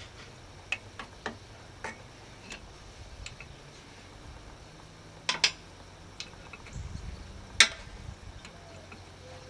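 Scattered sharp metallic clinks of a wrench working on fittings under an old engine, at first about every half second, with the loudest clink about seven and a half seconds in.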